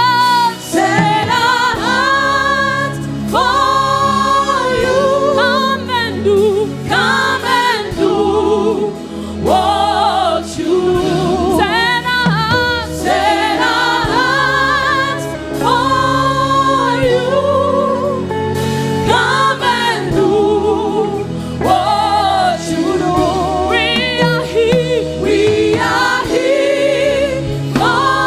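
Gospel worship music: voices singing together in continuous phrases over steady low instrumental notes.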